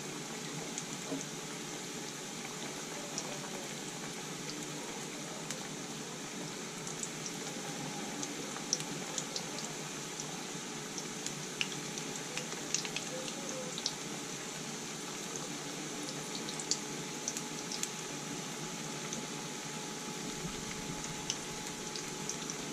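Onion pakoras deep-frying in hot oil in a kadhai: a steady bubbling sizzle, with small pops and crackles scattered through it.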